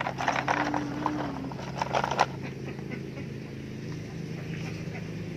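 Plastic toy trucks knocking and clattering as they are pushed around and set down in dirt, with a run of sharp clicks in the first two seconds or so and then quieter handling. A steady low hum runs underneath.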